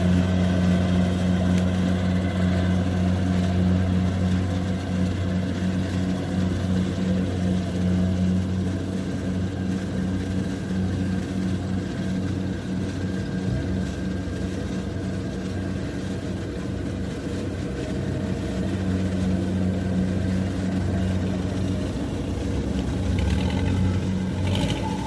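Heavy diesel engine of farm machinery running steadily, a constant low hum that eases slightly in the middle and picks up again later.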